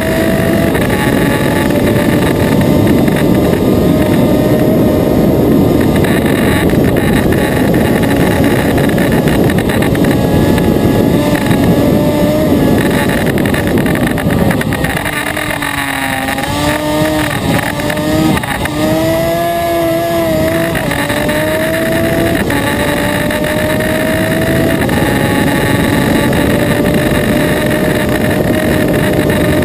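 Racing engine at high revs heard onboard, with heavy wind rush; the revs climb and drop back at each gear change, fall away for a slower corner about halfway through, then build up again.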